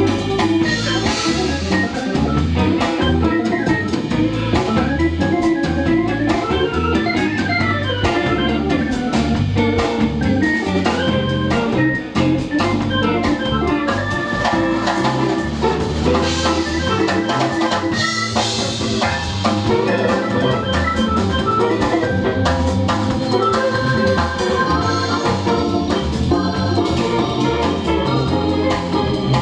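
Live jazz band playing a continuous instrumental: electric guitar, electric bass, drum kit and keyboard.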